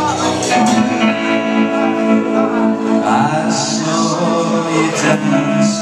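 Live guitar band playing a rock song: electric guitar, a drum kit, and a man singing into the microphone.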